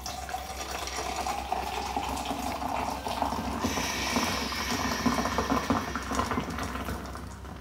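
A carbonated drink poured in a long stream from a can held high, splashing and fizzing into a tall glass as it fills, tailing off near the end.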